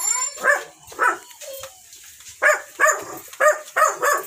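A dog barking repeatedly in short, loud barks: two, then after a pause of about a second a quicker run of about five.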